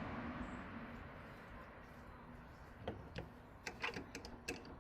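Faint background noise, then from about three seconds in a run of light, irregular clicks and taps, like small parts or tools being handled.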